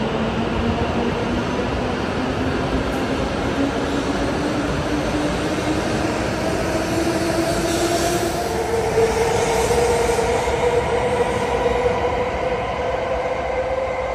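E7/W7-series Hokuriku Shinkansen train moving along the platform with a steady rush of running noise and a traction-motor whine that climbs slowly in pitch as it gathers speed.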